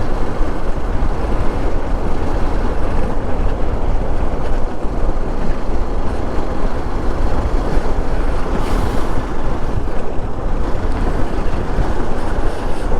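Steady wind rush and road noise from a moving motorcycle, heard on the rider's microphone. A brief hiss about nine seconds in.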